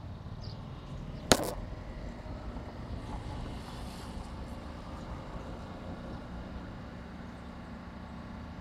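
Steady hum and rumble of a Vitória–Minas passenger train standing at the station platform, with one sharp bang a little over a second in.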